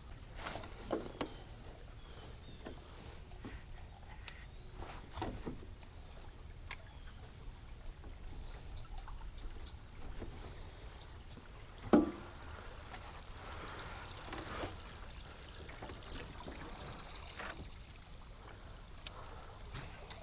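Steady high-pitched chorus of crickets, with scattered knocks and clunks on a 12-foot Alumacraft aluminium boat and one sharper knock a little past halfway.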